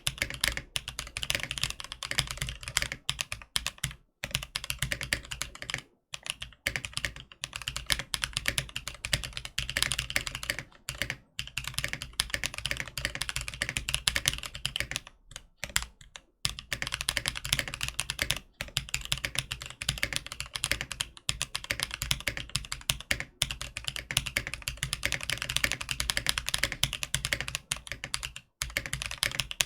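Fast, continuous typing on a Tofu 65 mechanical keyboard with prototype Gazzew Boba Linear Thock switches. The board has an acrylic case with no foam, an O-ring mounted PCB, a polycarbonate plate and holee-modded Durock V2 stabilizers. Dense runs of keystrokes are broken by a few brief pauses.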